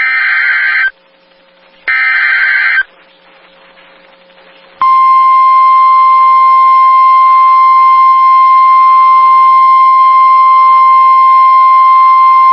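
NOAA Weather Radio EAS alert, announcing a severe thunderstorm warning. It opens with two harsh, buzzing bursts of the SAME digital header, about a second each and a second apart. After a short silence, the steady single-pitch 1050 Hz warning alarm tone starts about five seconds in and holds.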